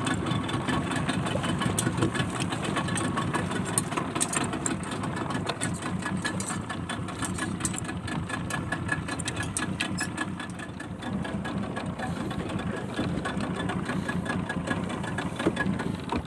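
Small boat engine running steadily, with a fast, even clatter of ticks over its low drone.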